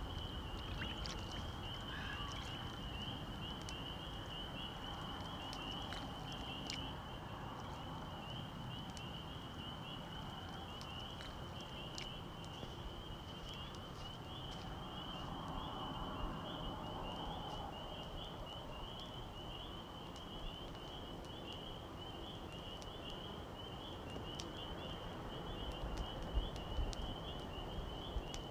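A night chorus of calling animals: one continuous high-pitched, rapidly pulsing trill that never breaks, over a soft outdoor hiss. Scattered faint clicks come through, and a few low thumps near the end.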